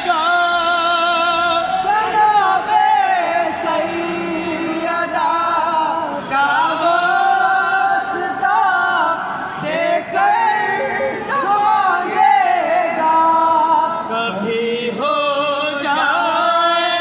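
A group of men singing an unaccompanied devotional song in praise of Ali. Their voices carry a slow, wavering melody with no instruments.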